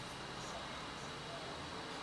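Steady, even hiss of outdoor street background noise, like distant traffic.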